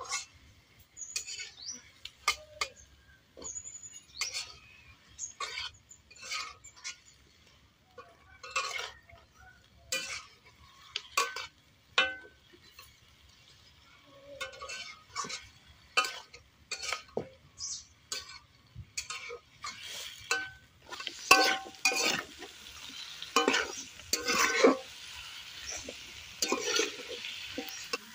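A metal spatula scrapes and knocks against a wok as pumpkin pieces are stirred and fried in spiced oil, in irregular strokes about once a second. From about two-thirds of the way in, a steady sizzling hiss joins and the scrapes grow louder.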